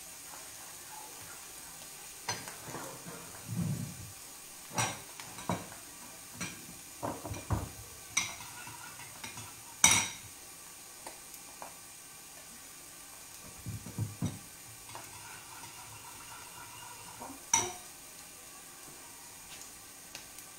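Scattered clinks and knocks of utensils and dishes handled at a kitchen counter, the loudest about ten seconds in, over a steady faint sizzle of a tuna steak searing on a grill pan.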